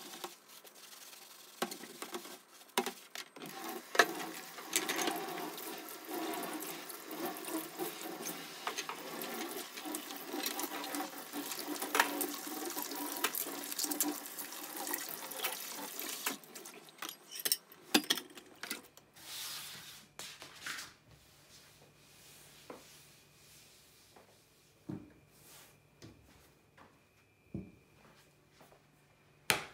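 Tap water running into a stainless steel sink while dishes are washed and rinsed, with clinks and clatter of dishes and utensils. The water stops about two-thirds of the way through, leaving a quieter stretch with a few soft knocks.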